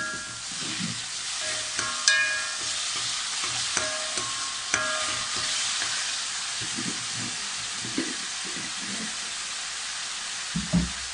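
Diced carrot, capsicum and beans sizzling in hot oil in a metal wok over a high flame while a metal spoon stirs them. The spoon clinks against the pan a few times in the first five seconds, each strike ringing briefly, and there is a short low knock near the end.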